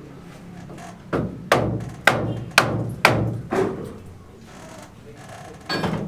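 Hard knocks on brick, about six in quick succession at roughly two a second, then one more near the end: a brick being tapped into place during bricklaying.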